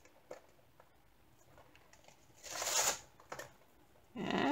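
Clear plastic cover sheet of a diamond painting rustling once, briefly, as it is shifted by hand about two and a half seconds in, with a few faint taps around it. A hummed note begins right at the end.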